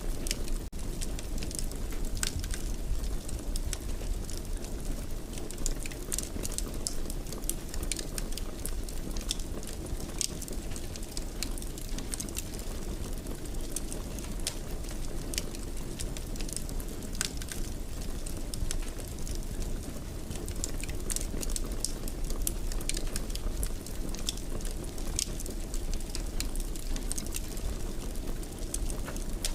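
Wood fire crackling in a fireplace: frequent sharp pops and snaps over a steady low rumble of the burning.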